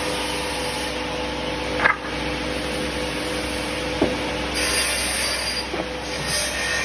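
Automatic double-end cutoff saw for pallet slats running with a steady motor hum, with a sharp cutting sound about two seconds in and a smaller one about four seconds in. A high hiss comes a little past the middle and again briefly near the end.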